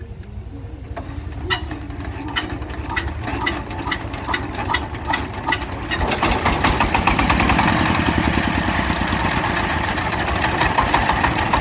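Jiang Fa single-cylinder diesel engine running with a regular clatter that quickens. About six seconds in it gets louder and busier as it is throttled up.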